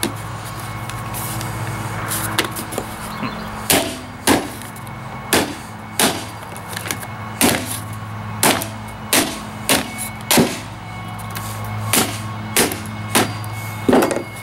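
A hammer striking the metal sleeve around a Nutribullet blender motor to knock it off. There are more than a dozen sharp blows at an uneven pace, starting about four seconds in.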